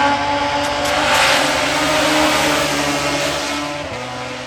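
VW Polo hillclimb race car driving past under hard acceleration, its engine loudest about a second in and fading toward the end, the engine note dropping in pitch near the end.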